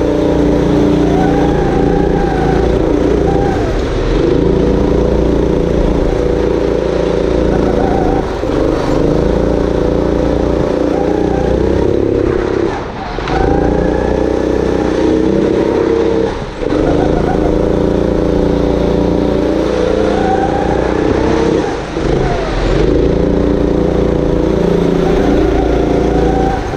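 Go-kart motor heard from the driver's seat, rising in pitch as the kart accelerates, with about five short drops where the driver lifts off for corners.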